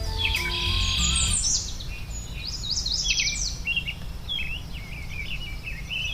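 Several birds chirping and singing in quick, high, repeated notes. A soft music track with sustained notes fades out about a second and a half in.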